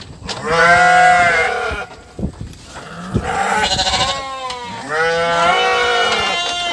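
Goats bleating: three long, wavering calls one after another.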